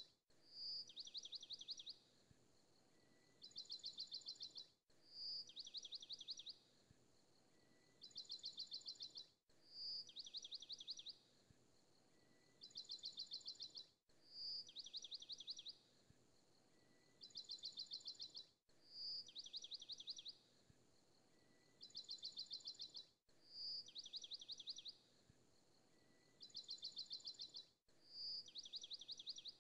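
Faint, high birdsong-like trilling: a short note followed by two quick trills, the same phrase repeating about every four and a half seconds with a brief cut between repeats, as from a looped recording.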